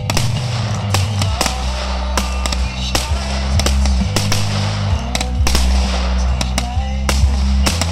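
Fireworks rockets bursting: a run of sharp, irregular bangs and crackles, over loud music with a heavy bass.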